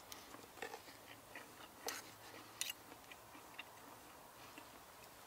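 Faint clicks and taps of cutlery on a plate during eating, with two sharper clicks about two and two and a half seconds in.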